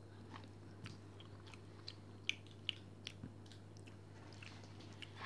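Someone eating pistachio ice cream from a metal spoon: faint mouth smacks and soft clicks every half second or so, over a steady low hum.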